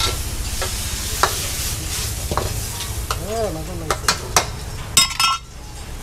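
Seafood sizzling in a wok as it is stir-fried, with a metal spatula scraping and knocking against the pan several times. A ringing metal clang about five seconds in.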